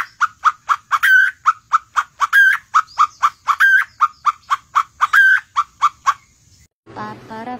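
Caged white-rumped shama calling in a fast, even series of short notes, about four a second, with a louder, higher note every second or so; the calls stop about six seconds in. Near the end, after a brief gap, ukulele music and voices begin.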